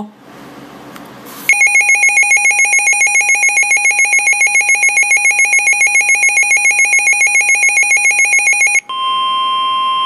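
NOAA weather radio alert for a severe thunderstorm warning: a loud, rapid, evenly pulsing electronic beep for about seven seconds, then a steady single-pitch warning alarm tone, the weather radio's 1050 Hz alert tone.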